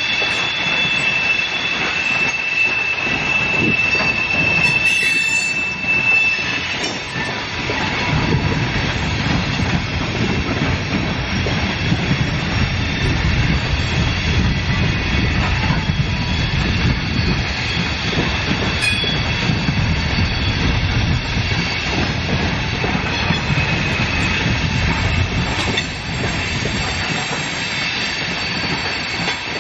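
Loaded coal hopper cars of a CSX freight train rolling past with steady wheel-on-rail noise and clatter. A high, steady wheel squeal sounds for the first six seconds or so, then a heavier low rumble builds and holds until near the end.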